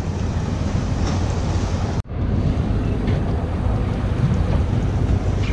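Wind buffeting the microphone over the rush of choppy water around a boat, a steady noise that drops out for an instant about two seconds in.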